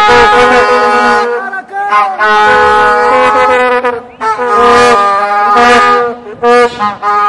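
Several plastic vuvuzelas blown together in long, loud, overlapping blasts at a few different pitches, with short breaks about every two seconds.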